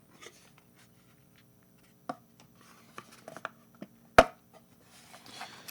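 Scattered light clicks and taps of a phone's box and packaging inserts being handled. There is a small cluster of them, then one sharp tap about four seconds in.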